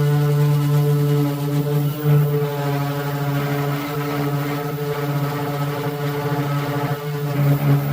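Power sander running steadily with 150-grit paper on a car's painted body panel, a pitched motor hum that swells briefly about two seconds in and again near the end.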